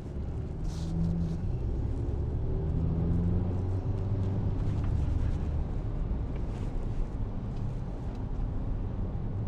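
A motor vehicle's engine running with a low, steady rumble.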